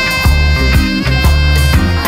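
Background music: an upbeat instrumental track with a steady beat, strong bass notes and held higher notes.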